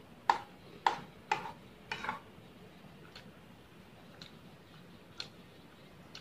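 Metal spoon and fork clinking and scraping against a plate while scooping fried noodles: four sharp clinks in the first two seconds, then fainter single taps about once a second.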